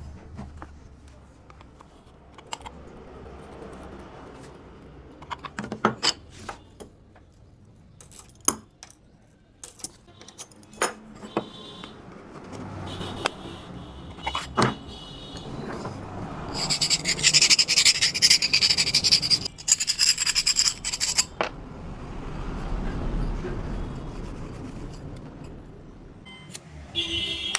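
Small parts and tools being handled: scattered clicks, taps and jangles with scraping and rubbing. A loud hiss lasting several seconds comes about two-thirds of the way in.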